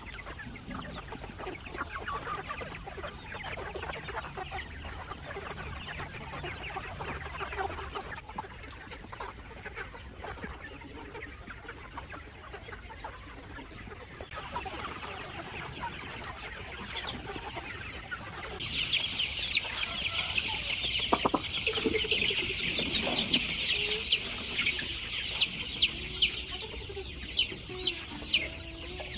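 Chickens clucking. About two-thirds of the way through, a dense, high chirping sets in and becomes the loudest sound.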